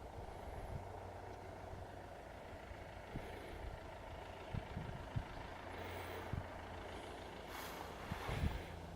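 Ford 5600 tractor's three-cylinder diesel engine running steadily at a distance, with scattered low thumps. A brief hiss rises and fades near the end.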